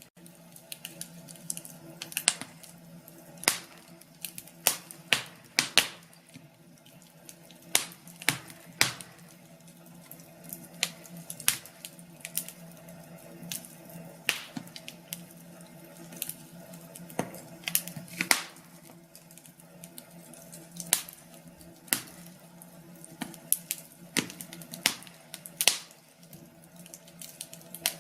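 Fire crackling in a fireplace: irregular sharp snaps and pops, about one or two a second, some much louder than others, over a faint steady hum.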